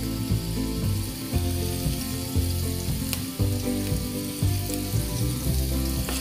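Minced garlic sizzling in hot olive oil in a frying pan, a steady hiss, with background music underneath.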